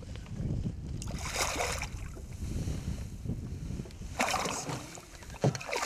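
A hooked pike splashing at the water's surface right beside a boat, two splashes about three seconds apart, over a low steady rumble.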